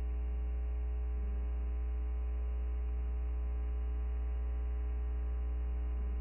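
Steady electrical mains hum with a faint buzz of its overtones, unchanging throughout; no other sound.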